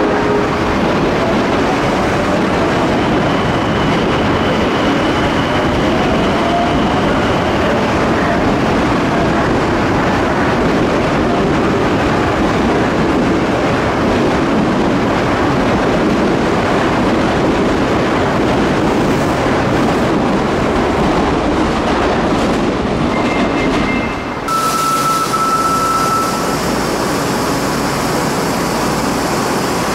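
Osaka Metro Midosuji Line subway train moving at the platform: a loud, steady rumble of wheels and running gear. About 24 seconds in it changes abruptly to a different, slightly quieter sound with a couple of short electronic tones.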